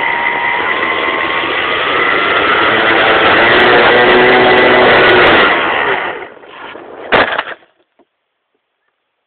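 Radio-controlled plane's motor running hard, heard from its onboard camera, its whine slowly rising in pitch. About six seconds in the motor sound falls away, and a second later comes one sharp impact: the plane crashing, which the uploader puts down to a rudder left unreversed.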